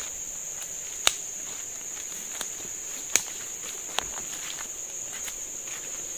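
Steady high-pitched chirring of forest insects, with a few sharp snaps or clicks on top, the loudest about a second in and again about three seconds in.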